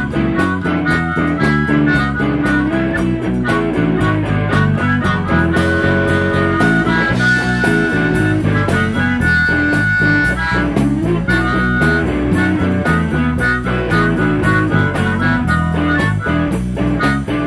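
Live blues band: a harmonica, cupped in the hands, plays a solo with long held notes over electric guitar, with a drum beat keeping steady time underneath.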